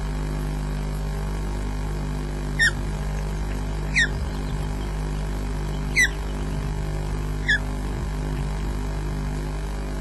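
Adult osprey giving short, high chirping calls, four of them about one and a half to two seconds apart, over a steady low hum.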